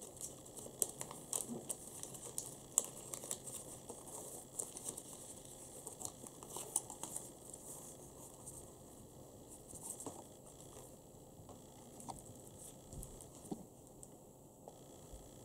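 A heavily creased sheet of origami paper crinkling and crackling as it is unfolded by hand. The crackles come thick and fast at first and thin out to occasional ones in the second half.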